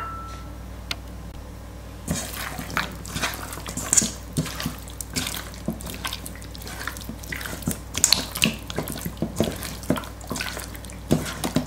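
A hand squishing raw chicken thighs through beaten egg in a stainless steel bowl: wet squelching and slapping, starting about two seconds in and going on in quick, irregular bursts.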